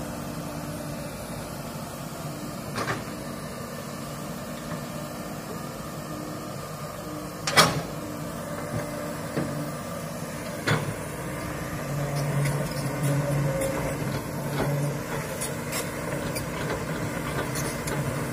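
Komatsu hydraulic excavator's diesel engine running steadily while the bucket digs into soil and roots, with a sharp knock a little under halfway through and smaller knocks before and after it. In the last few seconds the engine works harder and the sound grows louder in a pulsing way.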